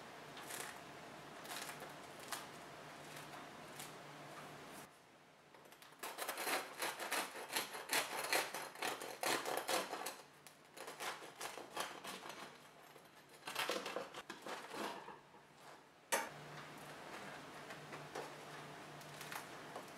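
Crisp crust of a freshly baked no-knead loaf crackling as hands press it. About six seconds in, a bread knife saws through the crust in quick, loud strokes, with another burst of cutting a few seconds later.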